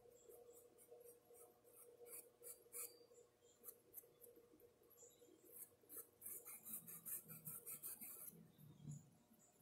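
Near silence: a faint steady hum with soft, scratchy ticks from a paintbrush working paint on a porcelain cup, bunched in two spells about two seconds and six seconds in.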